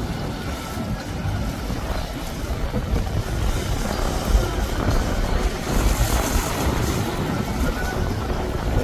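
Motor yacht running past at cruising speed: a steady low engine rumble mixed with the rush of its wake.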